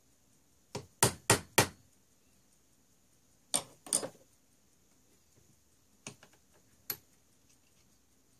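Small brass hammer tapping a new steel pin into a brass part to friction-fit a replacement hook pin. Four quick, sharp taps about a second in, two or three more a few seconds later, and two lighter taps near the end.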